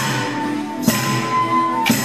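A live dance tune played on a squeezebox, with wooden dance sticks clashing together about once a second, twice here: about a second in and again near the end.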